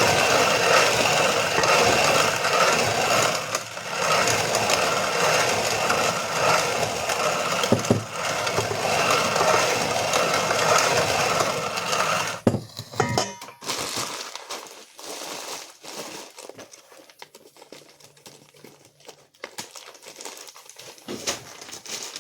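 Hand-cranked grain mill grinding kamut into flour, a dense gritty grinding with brief lulls, which stops about halfway through. After that, quieter scattered clicks and rustles.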